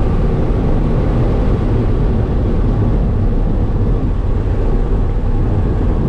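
Twin-turbocharged 2-valve V8 Mustang cruising at a steady pace, heard from inside the cabin: a loud, steady low engine drone mixed with road and wind noise, with no revving.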